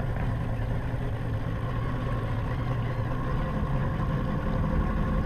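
Boat engine running at a steady idle, a low, even hum.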